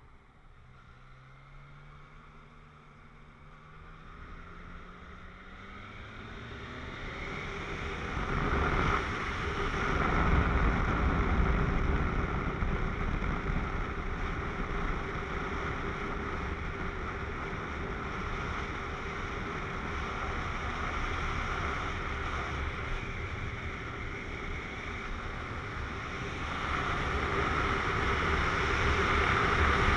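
Yamaha MT-09 three-cylinder motorcycle engine accelerating, its pitch rising over the first few seconds. It is then largely buried under wind rushing over the camera microphone as speed builds, with the wind loudest near the end.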